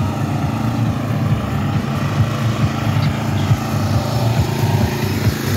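Small engine of a Murray ride-on lawn tractor running steadily as it tows a loaded trailer past at close range, with an uneven, pulsing low note.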